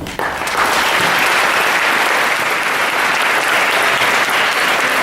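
A school audience clapping and cheering after a spoken-word poem. The applause breaks out suddenly and holds steady and loud.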